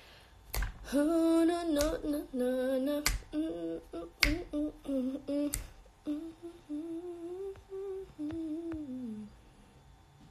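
A girl humming a tune without words, with a few sharp finger snaps over the first half. The humming stops about nine seconds in.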